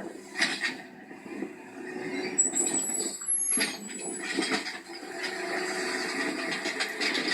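Garbage truck sound effects: steady mechanical running and hissing, with a brief high-pitched squeal starting about two and a half seconds in.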